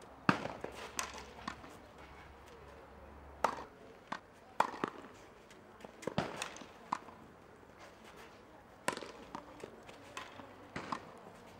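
Tennis racquets striking the ball in a baseline rally on a clay court: sharp single pocks every one and a half to three seconds, with softer knocks of the ball bouncing between.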